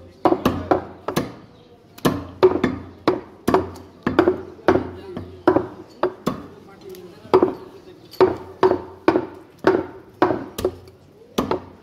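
Heavy butcher's knife chopping buffalo meat on a wooden chopping block, a steady run of sharp thwacks about two to three a second.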